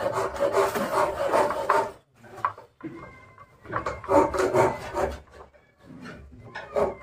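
Wooden harmonium parts rubbing and scraping by hand, wood on wood, in rough passes: a long one at the start, another about four seconds in, and a few short strokes near the end.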